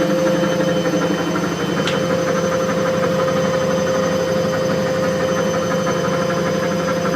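Gorenje W7513/S1 washing machine spinning: a steady motor whine over a dense rumbling hum from the drum, holding an even pitch, with one faint tick about two seconds in.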